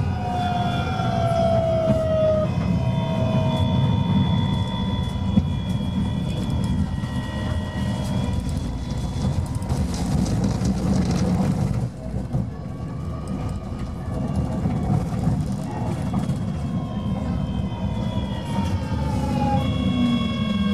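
GTO traction electronics of an AEG GT8N tram whining in several pitched tones over low wheel and track rumble: the tones glide down at the start, hold steady, give way to a louder rushing rail noise about ten seconds in, and glide down again near the end. This car's electronics are noticeably louder than those of its sister trams.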